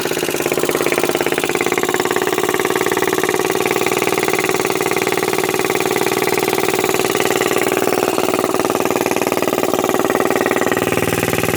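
Harbor Freight Predator 420cc single-cylinder engine, fitted with a 308 cam and a motorcycle-style muffler, idling at a steady speed on a mini bike.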